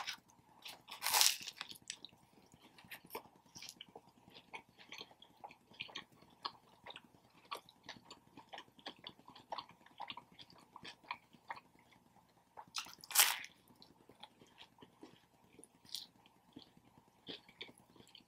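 Close-miked chewing and biting of a Subway sub sandwich: many small, irregular wet clicks. Two louder, brief noisy sounds come about a second in and near the end of the second third.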